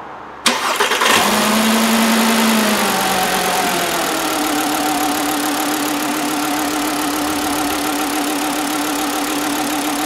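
2009 Volkswagen Jetta's 2.5-litre inline-five engine cranks briefly and catches about half a second in, runs at a raised speed for a few seconds, then settles to a steady idle. It is running with cylinder one dead: there is no spark from that cylinder's ignition coil, the cause of the misfire.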